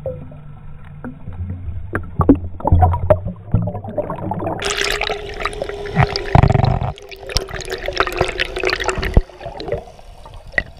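Underwater sound recorded through a GoPro's waterproof housing as a freediver ascends along the dive line: muffled water noise with bubbling, clicks and knocks. From about halfway in a steady hum runs for several seconds, and near the end the sound drops as the camera nears the surface.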